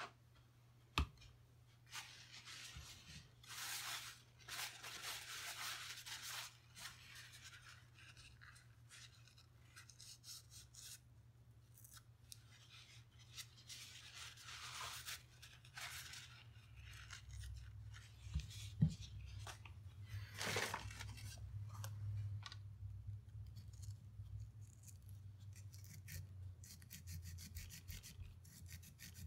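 Small steel hand tools scraping and rubbing against a Ruger 10/22 bolt while its firing pin and extractor are worked out, in several short scraping spells with a couple of sharp metallic clicks. A low steady hum runs underneath.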